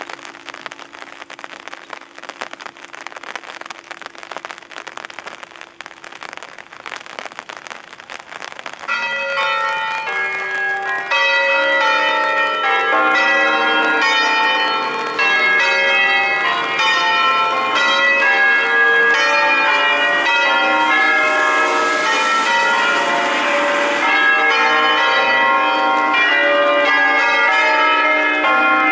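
Eight-bell church ring in B-flat (Pruneri bells of 1911, two recast by Cavadini in 1954) swung in full peal on their wheels. About nine seconds in, bell strikes start to build, and from about eleven seconds all the bells are sounding in dense, overlapping strikes of different pitches. Before that the sound is fainter, with a steady hum that fades out.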